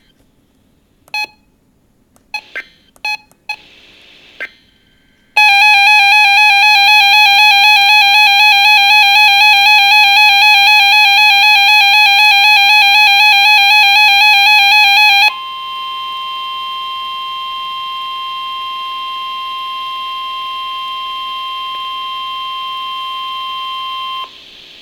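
Emergency Alert System data and alert tones: a few short screeching SAME digital code bursts, then about ten seconds of the wavering two-tone EAS attention signal, which switches abruptly to a steady single-pitch NOAA Weather Radio alert tone for about nine seconds before cutting off.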